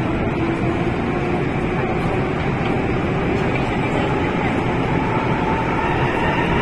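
Cabin sound of an MTR M-train electric metro car gathering speed out of a station: a steady rumble of wheels on rail with a faint traction-motor whine that slowly rises in pitch.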